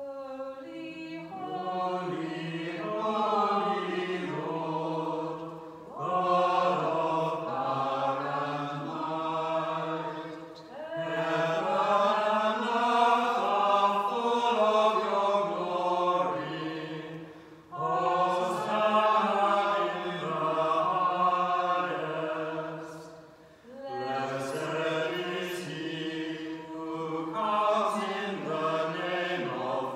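Church choir singing part of a sung Mass in long held phrases, with short breaks between them.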